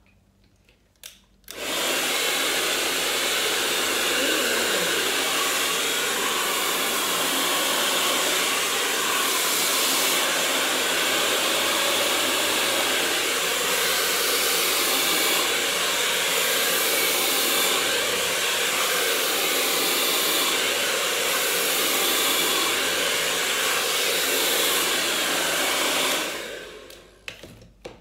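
Black Eagle heavy-duty hair dryer switched on about a second and a half in and blowing at a steady, loud rush while drying long hair, then switched off near the end and winding down over a second or so.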